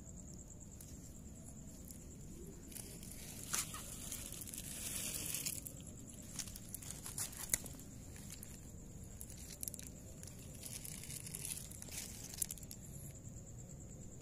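Close-up rustling and scraping, as a calico cat's fur and paws brush against the phone's microphone, with a few sharp clicks. A steady faint high-pitched hum runs underneath.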